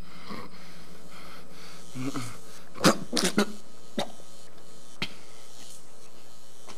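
A wounded man coughing and choking: a short voiced strain about two seconds in, then a cluster of sharp coughs about three seconds in and two more single ones a second apart, over a steady hiss.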